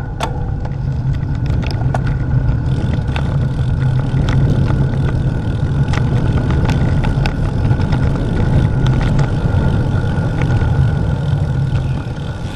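Wind buffeting the action-camera microphone and tyres rolling on asphalt as a bicycle coasts downhill, a loud low rumble that builds over the first few seconds with the speed. Scattered irregular clicks and rattles run through it.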